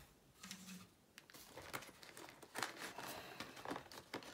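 Faint handling sounds of a cardboard model-locomotive box on a cutting mat: light rustles and small taps. They begin after about a second of near quiet.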